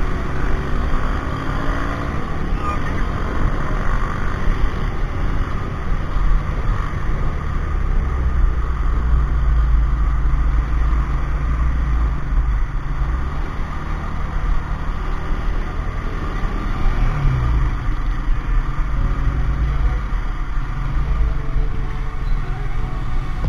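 Honda CG125's air-cooled single-cylinder four-stroke engine running steadily as the motorcycle rides slowly through traffic, picked up by a helmet-mounted camera with a heavy low rumble throughout.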